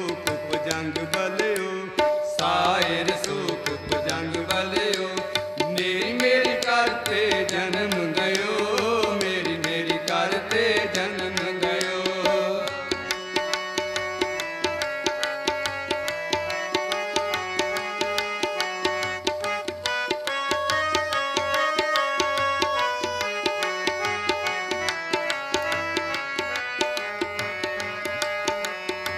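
Shabad kirtan accompaniment: harmonium playing a melody over a steady tabla rhythm. For roughly the first twelve seconds a voice sings a long, wavering line over them, without clear words; after that the harmonium carries the tune alone in even, stepped notes with the tabla.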